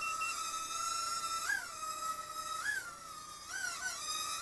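Hubsan Q4 Nano micro quadcopter in flight: its four tiny coreless motors give a steady high-pitched whine, with the pitch swooping up briefly three or four times as the throttle is blipped.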